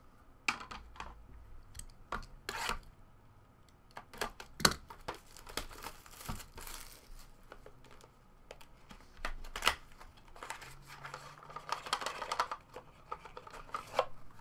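Hard plastic trading-card cases clicking and clacking against each other as they are handled and stacked, with crinkling and tearing of plastic pack wrapping in a few longer stretches.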